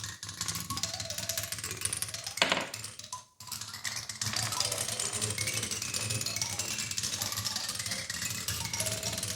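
Steel ball bearings clattering and rolling through a kinetic sculpture: a dense run of small clicks and rattles mixed with short musical tones. A louder clatter comes about two and a half seconds in, and the sound breaks off for an instant just after it.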